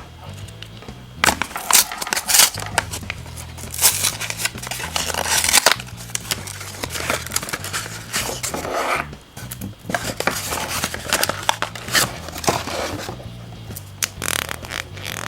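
Background music playing under close handling sounds of a surprise egg and its wrapping: crinkling, crackling and sharp clicks and cracks, coming in irregular clusters.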